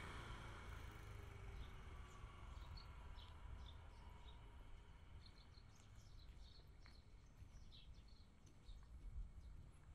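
Small birds chirping faintly, short scattered chirps over a low rumble of background noise. The engine of a motor scooter that has just passed fades away in the first two seconds.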